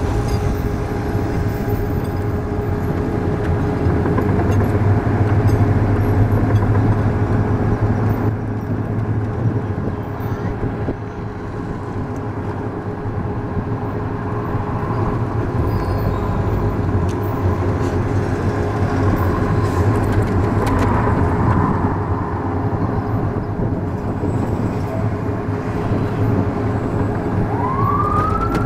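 Armoured military vehicle driving, heard from its open gun turret: steady engine and road noise with a constant whine. Near the end a rising siren-like wail starts.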